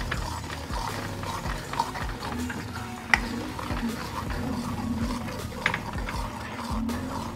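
Steel spoon stirring tomato paste into oil and spices in a hammered metal kadhai: wet scraping with a light sizzle, and sharp clinks of the spoon on the pan about three seconds in and again near six seconds.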